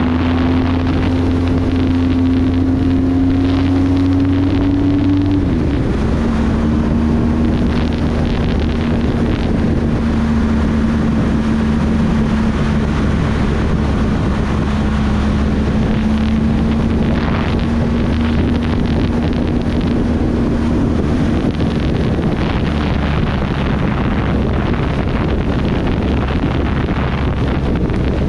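Motorcycle engine at a steady road speed, with wind rushing over the microphone. The engine note climbs slightly, drops suddenly about five seconds in, then holds steady.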